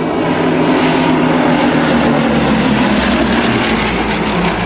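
Bristol Blenheim's twin Bristol Mercury radial engines droning steadily as the aircraft flies past overhead.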